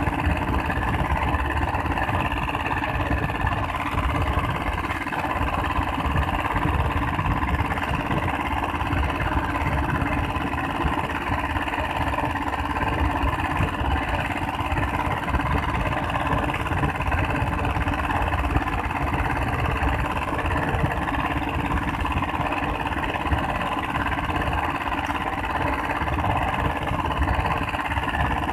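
Small inboard diesel engine of an outrigger fishing boat running steadily under way.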